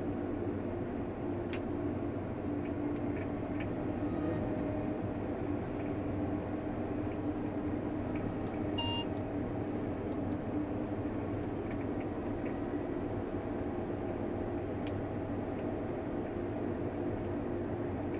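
New Holland CR11 combine harvester running steadily under harvesting load, a constant drone heard from inside the cab. A short electronic beep sounds about halfway through.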